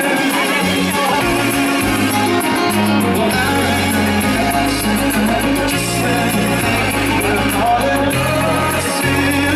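Live pop-rock band playing, with keyboard and a man singing lead over steady bass notes.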